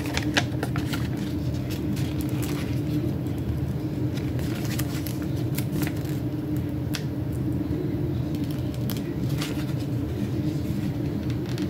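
Light clicks and rustles of a paper sticker sheet being handled while a sticker is picked loose, over a steady low hum.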